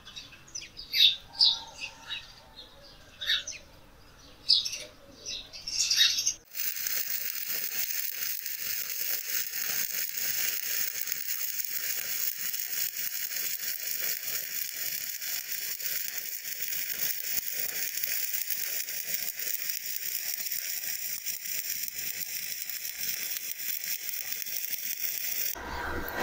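Stick-welding arc crackling and hissing steadily as a flux-coated electrode runs a bead on steel plate. It starts about six seconds in and cuts off abruptly just before the end. Before it, a few short, sharp high-pitched sounds.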